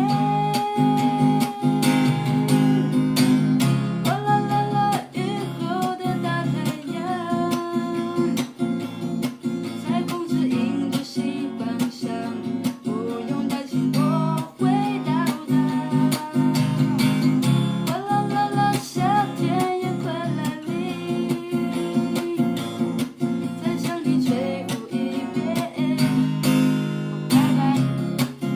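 Acoustic guitar strummed steadily while a voice sings the melody of a Chinese-language ballad.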